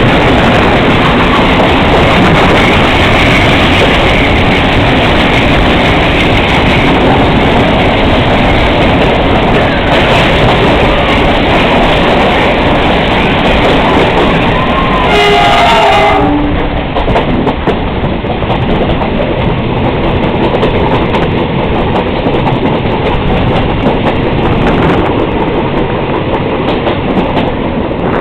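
Passenger train running on the rails, a steady loud rumble and rattle of the carriages. About halfway through, the locomotive horn sounds once for about a second; after it the running noise is a little quieter.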